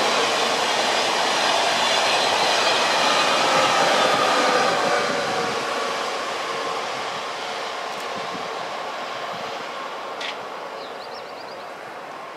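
TGV high-speed train running past and receding: a steady rush of rolling noise with faint steady tones, fading gradually as it draws away. A few short high chirps near the end.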